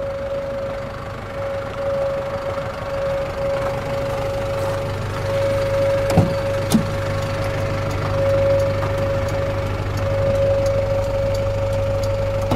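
Steady drone of an idling truck engine, which the speaker puts down to a KamAZ standing nearby, with a constant whining tone over it. About six seconds in, two sharp clicks come from the GAZ Valdai's cab door latch as the door is opened.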